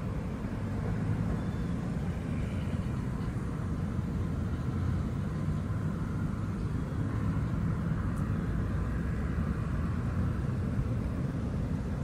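Steady low outdoor rumble with a light hiss above it, with no bird calls standing out.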